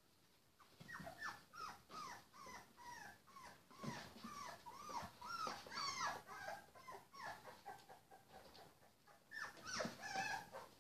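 Three-week-old puppies whimpering and squeaking in many short, high calls, starting about a second in, thinning out for a while, then a fresh burst near the end.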